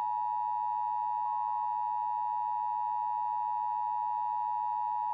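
Emergency Alert System attention signal: the steady two-tone alert tone broadcast before an emergency message, sounding without change and cutting off sharply just after.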